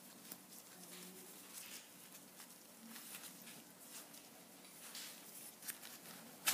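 Faint rustling with scattered light clicks and taps from small objects being handled, over a quiet room hum.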